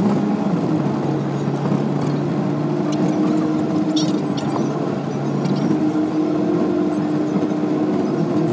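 Car engine and road noise heard from inside the cabin while driving: a steady low hum whose pitch shifts a couple of times, with a few faint clicks.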